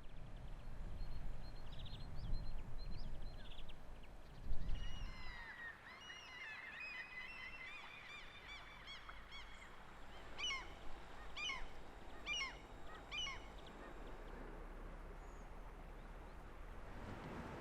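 Gulls calling: a run of short squawking calls from several birds starts about four seconds in, followed by four louder calls about a second apart. A low rumble lies under the first few seconds.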